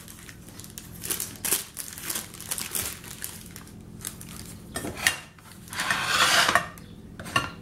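Crinkling of the paper wrapped around a roll of parsley butter as it is handled, mixed with light knocks and clinks of dishes on a table, and a longer, louder rustle about six seconds in.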